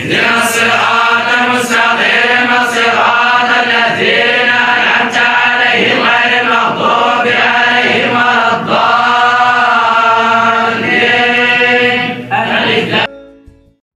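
Many young men's voices reciting the Quran together in unison, a steady group chant in the manner of a traditional Quranic school. It cuts off suddenly near the end.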